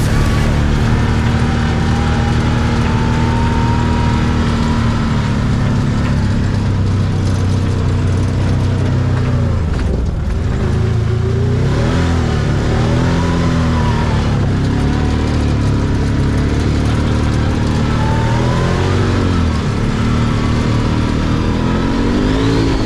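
Can-Am Maverick side-by-side engine running and revving, its pitch rising and falling several times as the throttle is worked.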